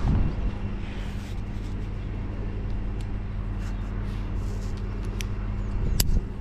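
Steady low engine hum, with a few sharp clicks from the climber handling the rigging rope and its hardware, the loudest near the end.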